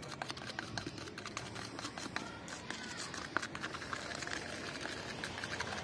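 A screwdriver stirring and scraping two-part structural putty in a small plastic cup: a steady run of small scrapes and clicks as the catalyst is mixed in.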